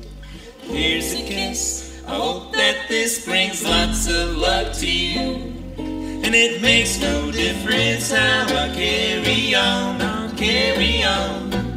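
Western swing band playing: an archtop guitar and a second guitar strumming and picking over a plucked upright bass.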